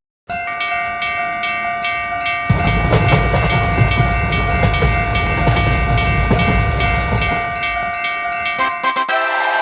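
Railroad crossing alarm ringing in a steady repeating rhythm while a train rumbles past for several seconds. A few sharp knocks and a burst of hiss follow near the end.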